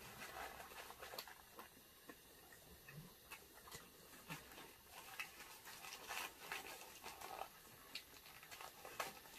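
Faint chewing and the crinkle of paper and plastic wrappers as two people eat egg rolls: quiet, irregular clicks and crackles.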